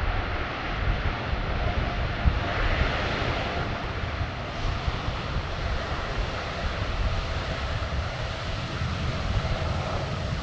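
Boeing 747-8F freighter's four GEnx turbofan engines running as the jet rolls along the runway: a steady jet-engine noise with a faint hum, over a low rumble of wind on the microphone.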